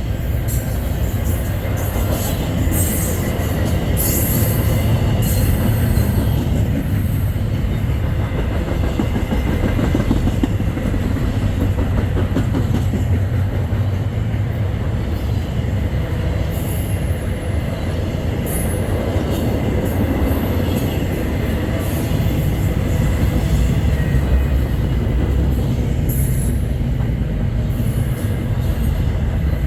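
Freight train cars rolling past, a steady heavy rumble of wheels on rail, with short bursts of high-pitched wheel squeal now and then.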